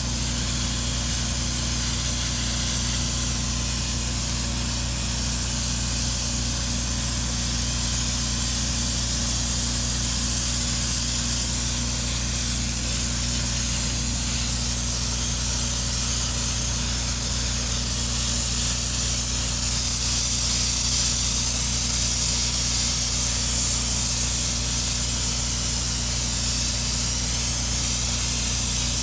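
Long, steady spray hiss: blending solvent being sprayed over freshly applied clear coat on a wheel repair, to melt the new clear into the factory clear coat. A steady low hum runs underneath.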